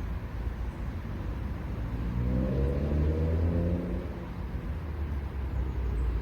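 Low rumble of a motor vehicle passing by. Its engine tone swells and rises slightly about halfway through, then fades.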